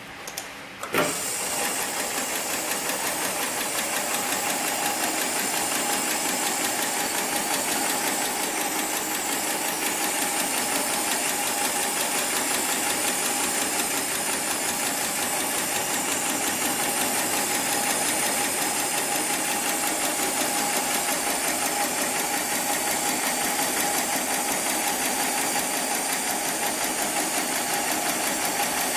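Heavy-duty programmable pattern sewing machine starting with a sharp click about a second in, then running steadily with a fast, even stitching rhythm as it sews thick sling webbing.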